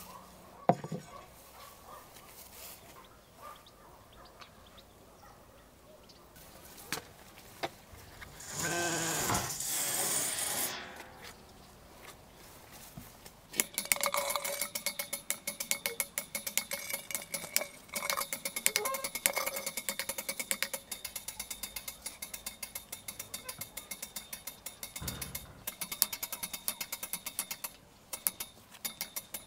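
Rapid, even clicking of a hand winch's ratchet with a steady metallic squeak, as a whole lamb is hoisted on its chain out of a tandoor pit. Earlier there is a loud rushing noise lasting about two seconds.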